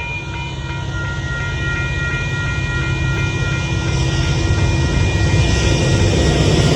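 Union Pacific diesel freight train approaching, its low rumble growing steadily louder, with thin steady high tones above it that fade out about five seconds in.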